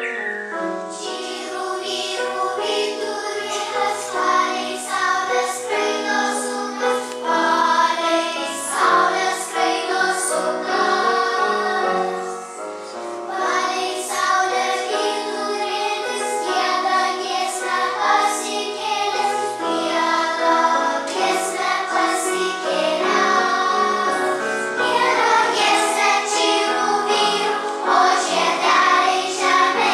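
A children's choir of young first-graders singing together, accompanied by piano.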